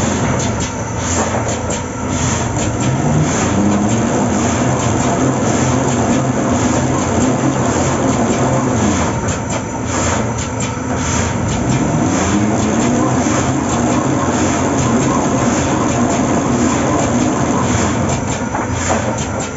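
Automatic reel-fed punching machine running as it punches a reel of PE-coated paper-cup board: a steady mechanical drone with repeated clicking and clatter. A motor tone rises in pitch twice, about nine seconds apart.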